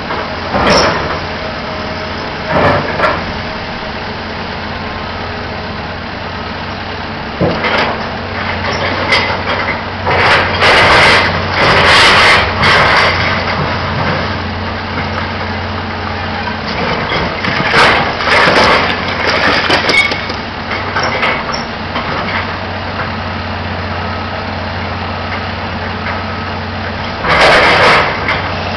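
A Caterpillar hydraulic excavator's diesel engine runs with a steady hum. Several loud bursts of crashing and scraping rise over it as the machine breaks down a cinder-block building and moves the rubble. The longest bursts come about ten seconds in, around eighteen seconds in, and near the end.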